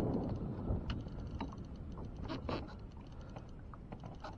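Clicks and light knocks from fishing gear and kayak while a large bass is fought on a baitcasting reel, with a fine rapid ticking under the scattered louder clicks.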